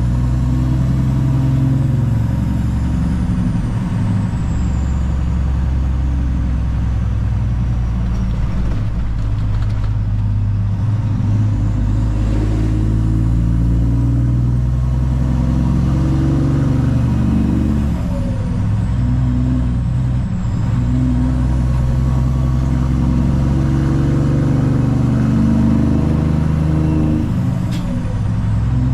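Cummins ISX inline-six diesel in a Peterbilt 379 pulling a loaded flatbed away under load. The engine note drops and climbs again several times as it works up through the gears.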